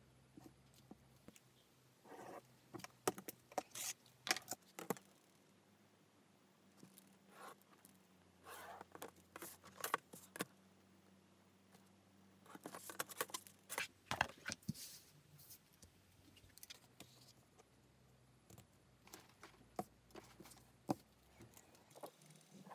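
Pen scratching lines onto paper and card along a steel ruler, with the ruler and steel pattern weights being moved and set down on a cutting mat: scattered clusters of faint scratches, taps and small metallic clicks.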